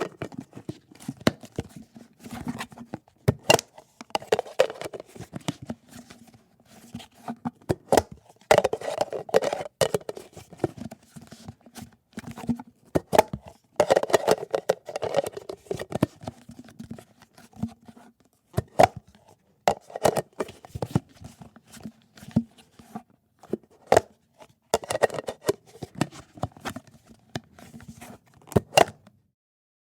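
Plastic Tupperware lids being snapped on and pulled off containers: sharp clicks and pops with short scrapes and rattles of stiff plastic, in irregular clusters with brief gaps.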